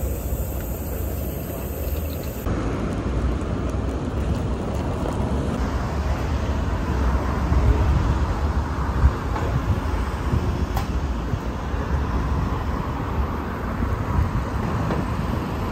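Steady city street traffic noise with the low rumble of an airport limousine coach's engine running at the curb.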